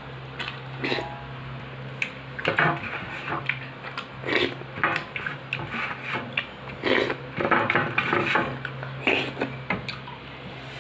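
Fingers scraping and tapping on a steel plate while eating by hand, in short irregular clicks and scrapes, with mouth sounds of eating, over a steady low hum.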